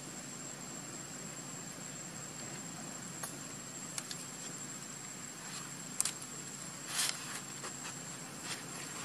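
Steady high-pitched insect drone over a faint hiss of outdoor ambience, with a few short dry crackles, the loudest about six and seven seconds in.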